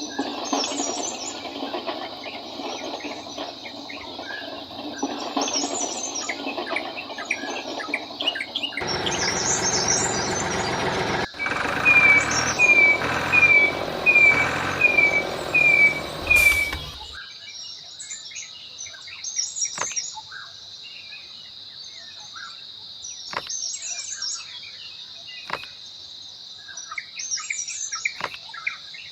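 Birds chirping, with a steady high insect drone. In the middle a louder rushing noise comes in for several seconds, carrying a run of seven short falling chirps, then fades back to the quieter birdsong with a few faint clicks.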